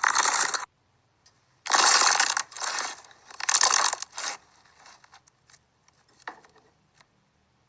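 Slime being handled and squeezed by hand, making several loud noisy bursts, each under a second, in the first half, then only faint scattered clicks.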